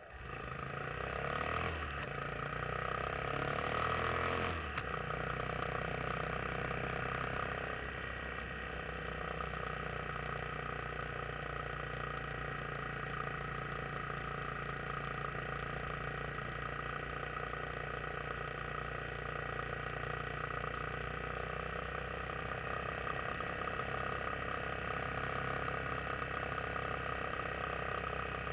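Yamaha XT250 single-cylinder four-stroke engine running under way. The revs climb over the first few seconds, settle lower about four and a half seconds in, then hold a steady drone.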